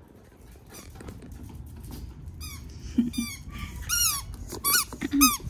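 Squeaky toy ball squeaking again and again in a West Highland white terrier's mouth as she chomps on it while trotting back. About six short, high squeaks, starting about halfway through.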